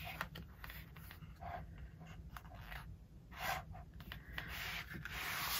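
Paper rustling and sliding as folded mini posters are pulled out from inside a photo book's cover: soft scattered scrapes and rubs, with a longer, louder slide near the end.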